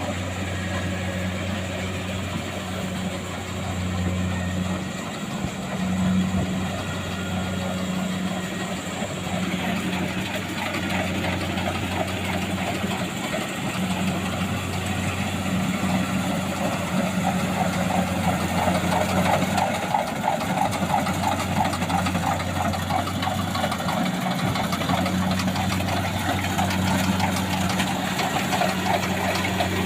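Kubota DC-70 Plus combine harvester's diesel engine running steadily with a low hum, the machine's mechanical clatter growing denser and a little louder from about ten seconds in.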